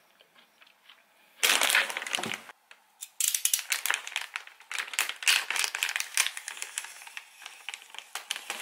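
Black plastic mailer bag crinkling as it is handled and slit open with a box cutter, starting about a second and a half in as dense crackling and clicking.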